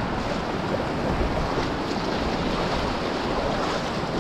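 Small waves washing in and swirling among rocks on a rocky shore, a steady hiss of surf.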